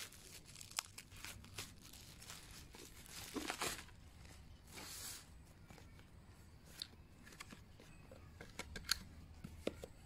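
Plastic bubble wrap being cut with scissors and torn open, crinkling and crackling, with a short tearing hiss about halfway through. This is followed by sparser handling clicks and a couple of sharp taps near the end as the packaging is handled.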